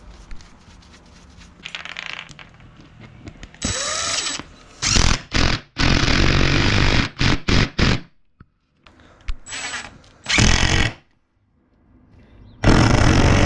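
Cordless DeWalt impact driver run in about seven short bursts, the first spinning up, the rest loud and rattling, as it tightens a bolt through a metal hinge to pull T-nuts into a plywood board. Before that, a few seconds of quiet handling and small clicks.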